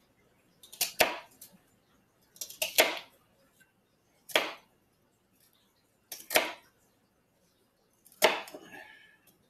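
Kitchen knife cutting through celery stalks onto a cutting board: five separate chops, about one every two seconds.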